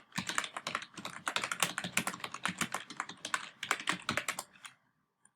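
Rapid typing on a computer keyboard: a fast, uneven run of keystrokes that stops shortly before the end.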